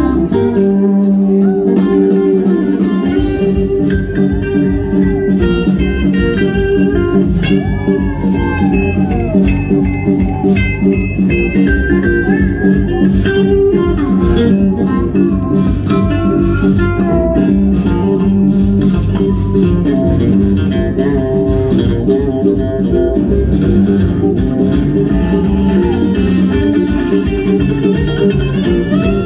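Live country band playing an instrumental break, with an electric guitar lead over upright bass and drums. The bass and drums come in about three seconds in.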